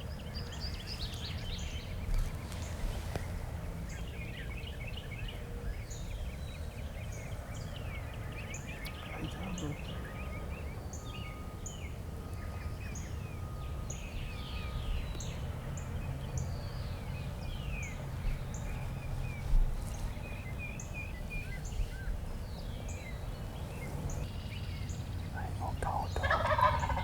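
Wild turkey gobbling among the chirps and songs of small songbirds, the loudest gobble near the end.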